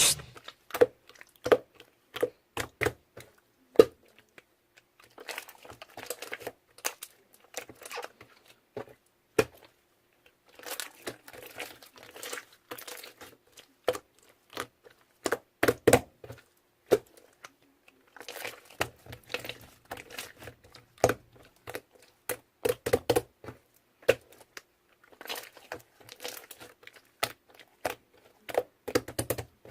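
Irregular light clicks and short spells of rustling and crinkling, coming in clusters every few seconds with quieter gaps between.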